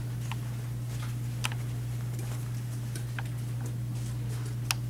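Steady low hum of room tone in a small meeting room, with a few scattered sharp clicks at irregular moments, the loudest near the end.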